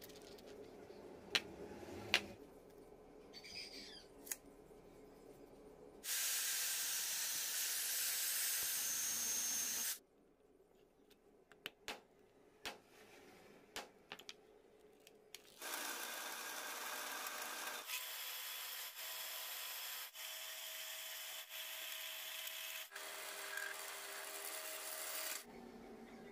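Small steel parts clicking and tapping as they are handled, then a power tool running for about four seconds and stopping abruptly. After more sharp clicks, a power tool runs steadily again for about ten seconds.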